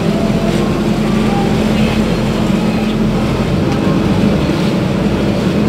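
Engine of a motorized outrigger boat (bangka) running steadily while under way, a constant low hum.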